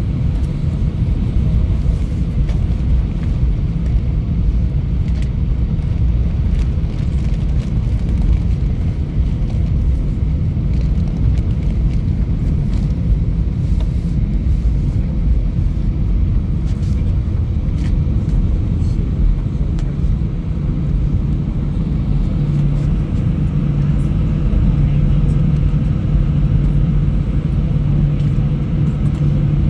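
Airbus A320 cabin noise while taxiing: a steady low rumble from the idling jet engines and rolling gear. A low hum grows stronger about two-thirds of the way through.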